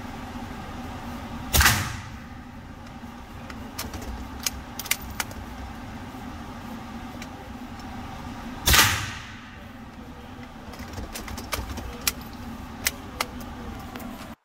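Two rifle shots about seven seconds apart, each ringing out in an indoor shooting range, with lighter sharp clicks between them over a steady low hum.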